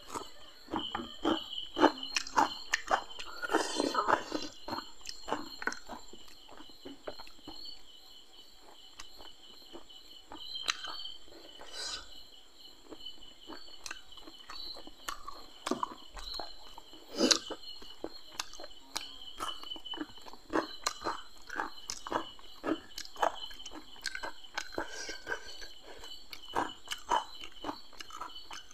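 Close-up eating sounds of a person chewing fried masala fish and raw onion by hand: many small wet clicks, smacks and crunches. A steady high insect chirring runs behind.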